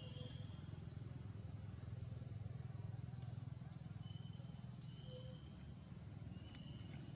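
Faint outdoor ambience: a steady low rumble with a handful of short, high, level chirps scattered through it.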